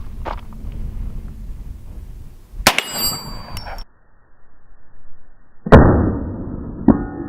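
A .50 AE Desert Eagle shot striking a stainless steel plate, a sharp crack with the plate ringing in a high clang. A few seconds later comes a second, louder and duller bang, and near the end steady ringing tones begin.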